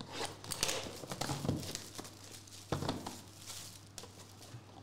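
Sealed cardboard trading-card boxes handled on a desk: a few short knocks and taps, with scratching and crinkling as the shrink-wrap on one box is cut open with a small blade. A faint steady hum runs underneath.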